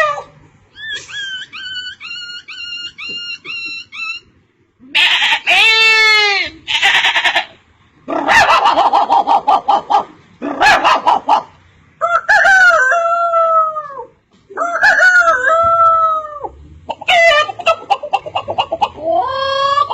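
A string of animal calls, a rooster crowing and clucking among them. A quick run of short repeated chirps comes first, then several long calls follow one after another with brief pauses.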